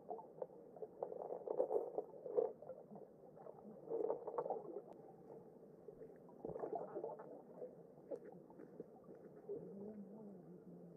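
Muffled underwater sound of a shallow river stream, heard with the microphone below the surface: irregular crackling and bubbling, louder in patches about one to two seconds in, around four seconds and again around six and a half seconds. A faint wavering low tone comes in near the end.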